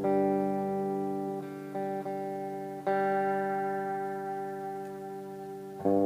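1996 Japanese-made Grover Jackson electric guitar playing chords that are struck and left to ring out. New chords come in at the start, about three seconds in and again near the end, with a few small note changes in between.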